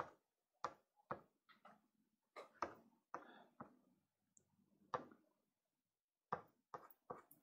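About a dozen faint, short scratches and taps from a pastel stick making strokes on a Pastelmat board, spaced irregularly, with near silence between them.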